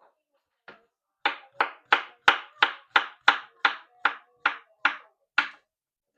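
Kitchen knife chopping through a cucumber into thick rounds, each stroke knocking on the cutting board: a dozen or so quick, even cuts, about three a second.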